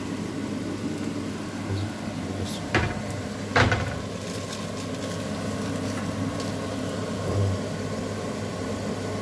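Minced beef with grated carrot and garlic sizzling lightly as it fries in a pan, over a steady low hum, with two sharp knocks about three and three and a half seconds in.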